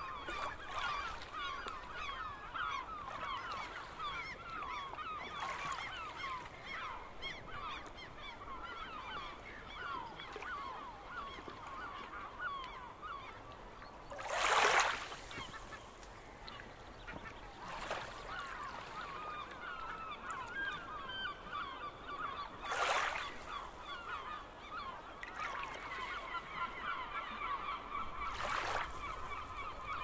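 A flock of gulls calling without pause, many short overlapping cries. A few brief splashes of waves on the rocky shore cut through: about halfway, and twice more near the end.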